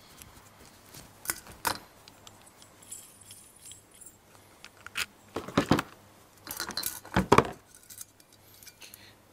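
Small metal and glass headlamp parts being handled on a table as an LED headlight bulb is fitted into a headlamp: scattered clinks and knocks, the loudest about five and a half and seven seconds in.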